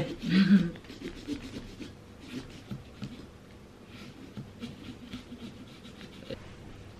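Small serrated pumpkin-carving saw sawing up and down through a pumpkin's rind along a drawn line: faint, irregular scratchy rasping strokes.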